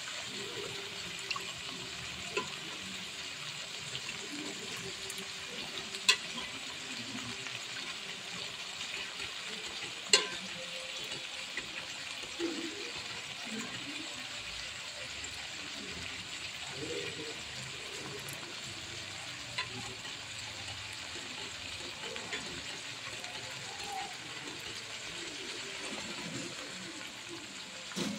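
Leafy greens and sliced onions cooking in hot oil in a steel kadai, a steady sizzling hiss, with a few sharp clicks about six and ten seconds in.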